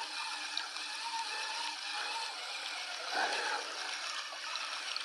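Steady rushing of a small, shallow river's water, with a brief louder noise about three seconds in.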